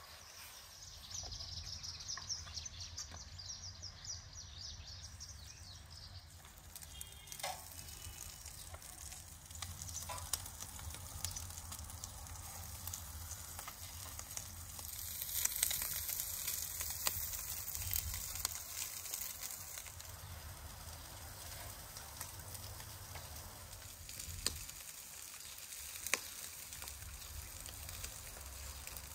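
Kokorec, lamb intestines, sizzling as it cooks, with scattered sharp crackles. The sizzle swells for a few seconds past the middle.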